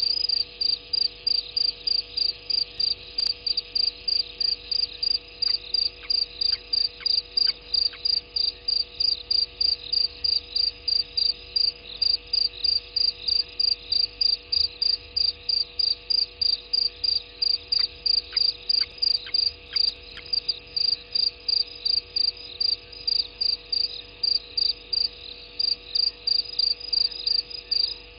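Cricket chirping at night in an even, unbroken rhythm of short high chirps, about three a second.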